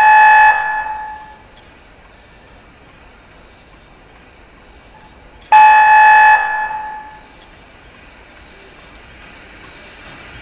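Steam whistle of Strasburg Rail Road No. 90, a 2-10-0 steam locomotive, sounded in two blasts. The first ends about half a second in; the second starts past the middle and lasts about a second. Each is one loud steady tone that trails off after it is cut.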